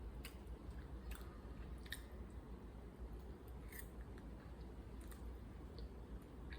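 Faint chewing of tteokbokki with a few scattered sharp clicks, over a low steady hum.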